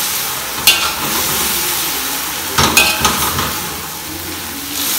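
Shredded sukuma wiki (collard greens) and tomatoes sizzling in a hot metal wok while being stirred with a metal slotted spoon, which clinks and scrapes against the pan about a second in and again around the three-second mark.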